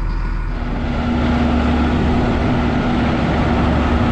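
Massey Ferguson tractor's diesel engine running after a cold start with the preheater on. About half a second in, the sound grows louder and fuller, with a steady hum coming up, as the engine is throttled up.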